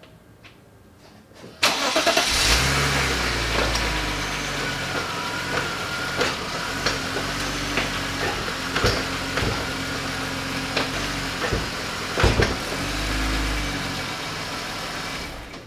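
BMW E53 X5 engine starting about a second and a half in and running, its revs rising and falling, with a few sharp knocks among it: the transmission clunk, which a new transmission mount bushing has not cured.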